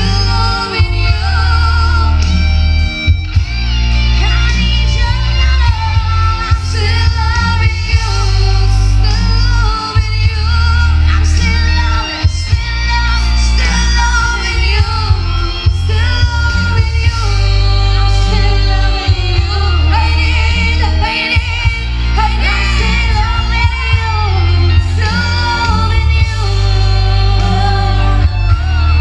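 Female vocal duo singing a song into microphones over an amplified backing track with a heavy bass line and guitar.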